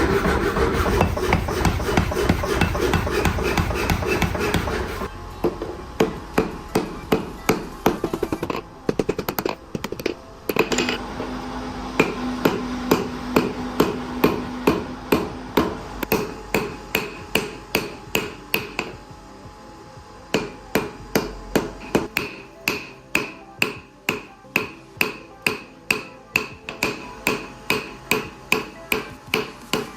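Hammer blows on steel being forged into a knife blade, a steady run of sharp, ringing strikes at about two a second, starting about five seconds in. Before that, a dense steady noise is the loudest sound.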